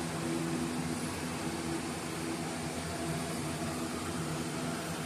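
A steady low mechanical hum with an even background hiss.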